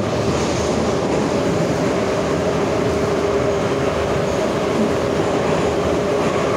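Metro train running at speed, heard from inside the passenger car: a steady, loud rumble of wheels and running gear with a steady hum over it.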